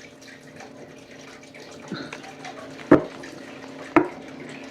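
Two sharp taps about a second apart, after a softer one, over a steady low hum of room noise.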